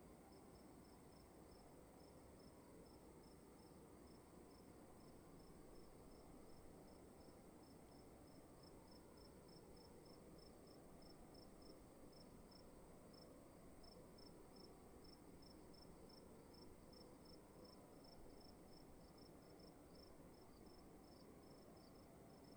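Faint cricket chirping: short, even chirps at about four a second, over a steady high tone and a low hiss.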